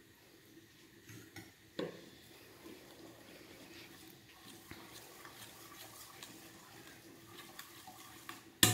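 Faint light clicks and scrapes of kitchen utensils, then a sudden loud clatter of metal pots or utensils right at the end.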